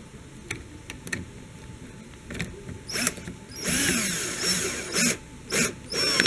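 Cordless drill-driver driving a T25 Torx screw for a fog light mounting, run in short trigger bursts. A few light clicks come first, then a run of about a second with the motor speed rising and falling, then three short bursts near the end.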